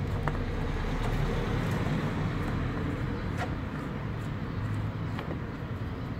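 Oil filler cap being fitted back onto the engine's valve cover, heard as a few light clicks over a steady low rumble.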